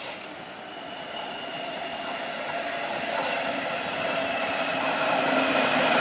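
Train approaching on the tracks, its rushing noise and whine growing steadily louder. A short click at the very start.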